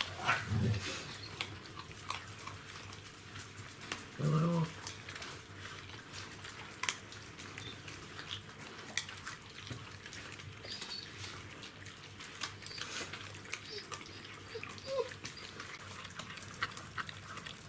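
Czechoslovakian wolfdog puppies eating from a bowl: a steady patter of small smacking and clicking eating sounds, with a short low dog vocalisation about four seconds in and a faint squeak near the end.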